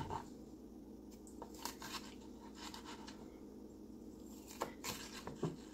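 Chef's knife slicing a yellow bell pepper into strips on a cutting board: a few soft, irregular cuts and taps of the blade on the board, over a faint steady hum.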